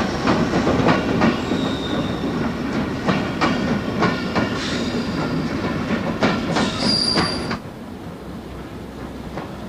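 An electric train's wheels run over rail joints and points: irregular clacks over a steady rumble, with short high-pitched wheel squeals about two seconds in and again near seven seconds. Near the end the sound drops to a quieter, duller rumble.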